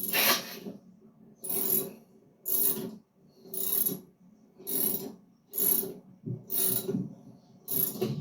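Hand socket ratchet being worked in steady strokes, about one a second, each stroke a short burst of clicking from the pawl, as it turns the mower's blade bolt.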